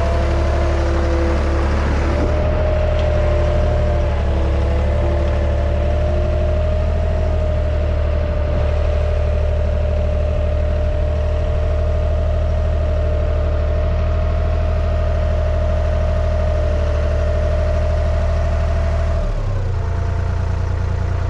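Skid steer's engine running steadily at high speed with a steady whine over it, dropping back in speed near the end.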